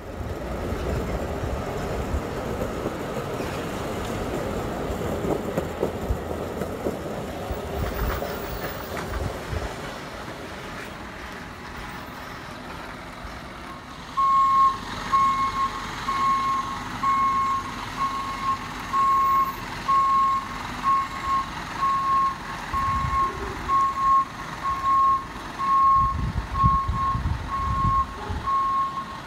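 Garbage truck engine running. About halfway in, its reversing alarm starts, a steady high beep about once a second over the engine as the truck backs up.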